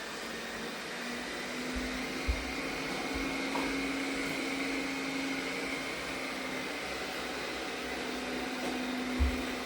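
Arnagar S8 robot vacuum cleaner running on a cleaning cycle, its suction motor giving a steady hum with a whine that rises in pitch over the first second or so, then holds steady. Two short low thumps come, one a couple of seconds in and one near the end.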